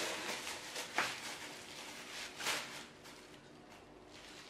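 Clear plastic wrapping rustling and crinkling as it is pulled off a heavy Dutch oven, with a short knock about a second in; the rustling dies down near the end.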